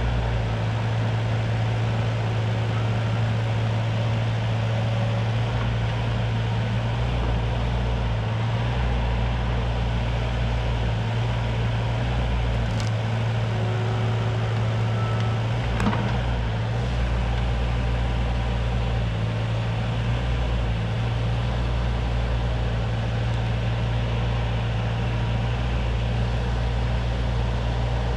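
CAT 302.7D mini excavator's diesel engine running steadily, with a single knock about 16 seconds in.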